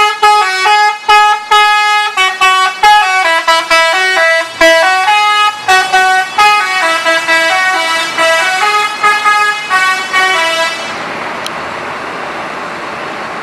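Indonesian intercity bus's multi-tone 'telolet' horn playing a melody of short, distinct notes, several a second, then stopping about eleven seconds in. A steady hiss of background noise remains.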